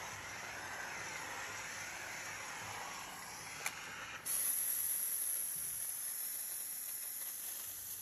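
Steam mop hissing as it works a tile floor. About four seconds in there is a click, then a sudden louder, sharper hiss of a steam blast jetting onto dried-on paste, which cuts off near the end.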